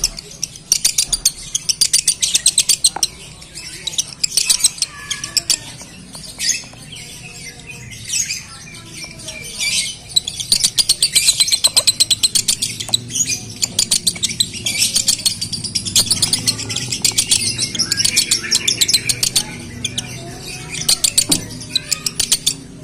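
Male Fischer's lovebird in breeding condition singing the rapid, high-pitched chattering song that keepers call 'konslet', in long unbroken runs. The chatter thins to a few scattered chirps for a few seconds before resuming.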